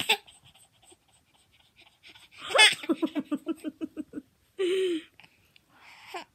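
A baby laughing: a high rising squeal about two and a half seconds in, then a quick run of short laughing pulses, with breathy bursts and a short vocal sound around five seconds.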